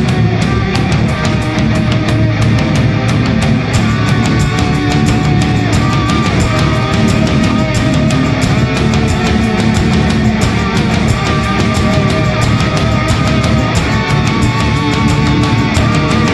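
Loud heavy rock music with guitar and drums: a melody line of held notes over a dense, steady drum beat.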